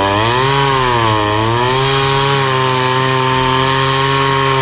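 Petrol chainsaw engine running at high revs, its pitch rising at the start and dipping briefly about a second in before holding steady.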